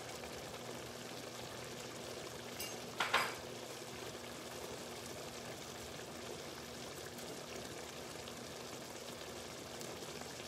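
Chicken and Brussels sprouts simmering in broth in an enamelled cast-iron pan, a steady bubbling sizzle. A brief clatter about three seconds in.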